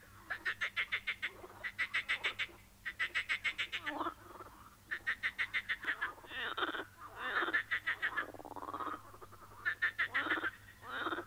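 Frogs croaking: a run of rattling calls, each about a second long, repeating with short gaps, with lower sliding calls overlapping in the middle.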